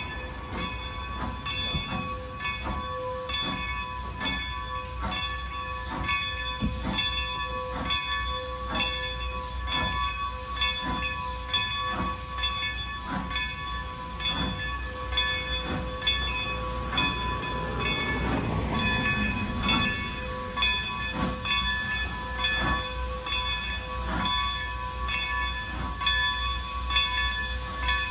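Grade-crossing warning bell ringing with evenly spaced strikes while Baldwin 2-10-0 steam locomotive No. 90 approaches. Its low rumble sits underneath, and a rushing noise swells about two-thirds of the way through.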